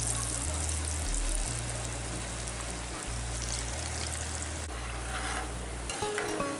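Hot oil in a kadai sizzling and bubbling steadily as potato laccha pakoras deep-fry.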